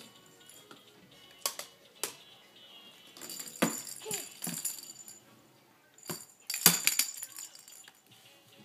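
Hard plastic baby toys knocking and rattling in a handful of sharp clacks, the loudest near the end, over a faint tinkly tune from an electronic activity toy.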